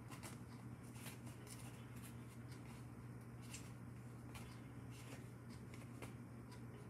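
Quiet room tone: a steady low hum with a few faint, short rustles and clicks of small handling sounds scattered through it.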